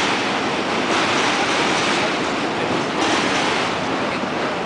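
Chicago 'L' elevated train running over the steel Lake Street Bridge, a steady, unbroken noise.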